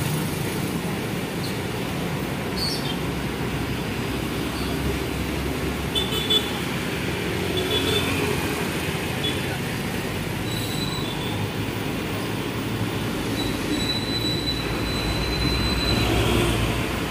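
Steady heavy road traffic passing close: diesel truck engines, motorcycles and tyre noise. It grows louder near the end as a large diesel truck drives by close, with a faint thin high squeal just before.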